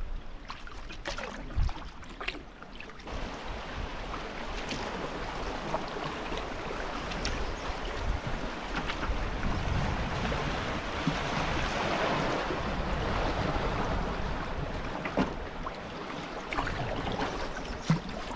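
Rushing water of a small class 1 river rapid around a canoe running through it, building to its loudest about two-thirds of the way in and easing near the end. A few sharp knocks stand out above it.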